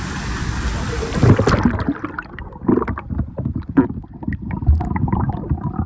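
Steady rushing water noise that cuts off abruptly about a second and a half in, followed by muffled, irregular splashing and sloshing with knocks close to the microphone, as if the mic is in or under the water.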